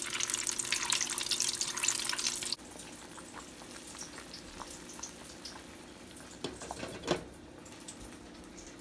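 Breaded banana-blossom fillets deep-frying in hot oil: a dense, crackling sizzle that cuts off abruptly about two and a half seconds in. After that, a pot of squash and zucchini simmering quietly, with two light knocks of a spoon against the pot near the end.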